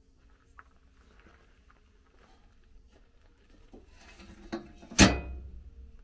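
Rusty steel toolbox lid shut with one loud metal clang about five seconds in, ringing briefly, after some handling noise and a softer knock just before.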